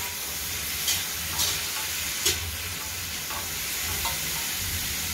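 Water spinach stems, onion and crushed garlic sizzling in hot oil in a metal wok, stirred with a metal spatula that scrapes against the pan in a few short strokes.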